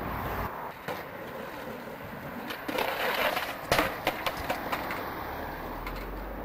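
Skateboard wheels rolling on stone paving, then a quick clatter of sharp knocks about four seconds in as the board hits the flagstones in a fall.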